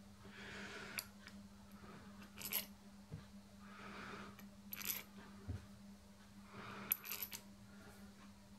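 Small steel socket-head cap screws clinking as they are handled and dropped into the holes of a steel crank disc: three short clusters of metallic clicks a couple of seconds apart, over a steady low hum.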